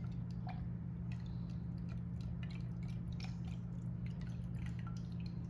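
Lobster tail meat being dunked in a jar of lemon butter sauce: small wet squishes, drips and clicks, over a steady low hum.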